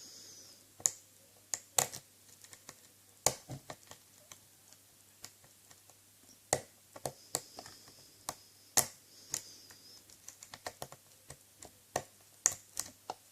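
Steel lock pick and tension wrench clicking against the pin tumblers in the keyway of a 50 mm Corbin padlock being picked: irregular sharp clicks, some single and some in quick runs.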